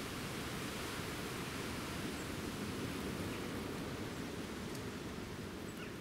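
Steady rushing outdoor background noise with no distinct source, carrying a few faint, brief chirps.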